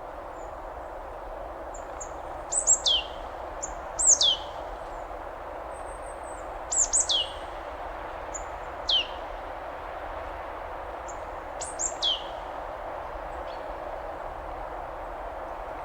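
Waterfall rushing steadily, with a bird calling over it: sharp, high calls that sweep quickly downward, often in pairs, five or six times.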